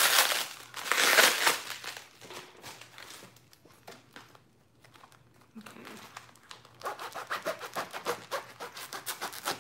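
Plastic and bubble wrap around a packed crystal crinkling loudly as it is handled. About seven seconds in comes a quick run of short scratchy strokes as a blade is drawn along the wrap to cut it open.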